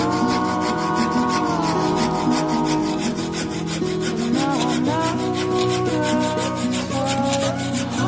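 Background music with held chords and rising swells, over a fast, regular rubbing or scraping rhythm of about five strokes a second.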